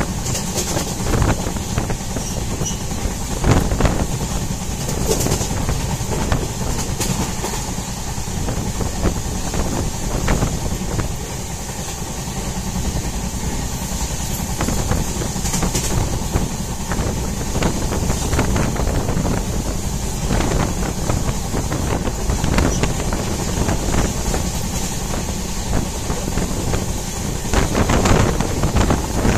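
Passenger train running along the track, heard from inside a moving coach: a steady rumble of wheels on rails with scattered sharper knocks every few seconds.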